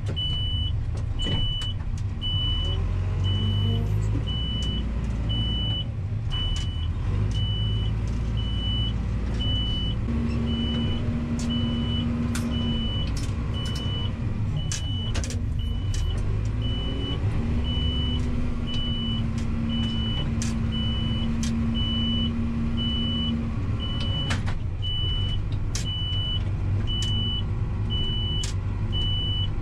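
A backhoe loader's diesel engine running steadily as the machine drives through snow, with a high beep repeating about one and a half times a second. A higher steady hum comes in twice for a few seconds, and light clanks and rattles sound from the machine.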